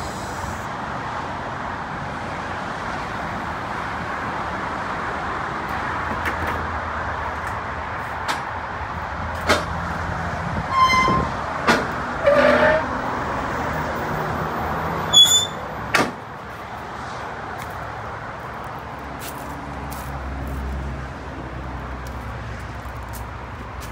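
Steady motor-vehicle noise with scattered clicks and knocks, dropping off suddenly about sixteen seconds in to a quieter hum.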